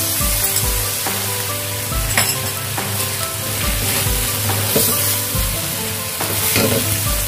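Beef and salted mustard greens sizzling in a stainless-steel wok while a wooden spatula stirs and scrapes through them, with cornstarch slurry just poured in to thicken the sauce. A few sharper scrapes stand out, one about two seconds in and another near five seconds.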